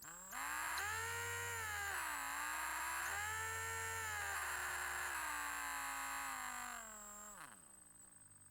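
Electric drill motor spinning up with a rising whine. It runs at speed, its pitch dipping and coming back up around two seconds in, then steps down through slower speeds and winds down with a falling whine near the end.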